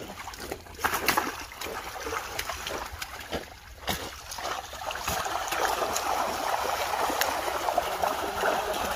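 Water splashing as netted fish thrash and leap in shallow muddy water while the fishing net is hauled in. The splashes are scattered at first, then become denser, louder and steadier about halfway through.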